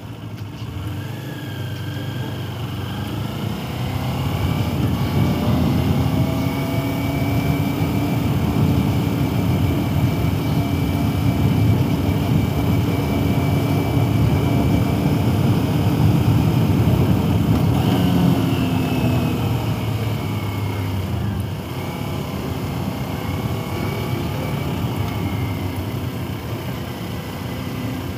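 Sport motorcycle engine heard from the rider's helmet, with wind rush: the engine note rises over the first few seconds as the bike accelerates, holds steady, then drops about two-thirds of the way through and runs on at a lower pitch.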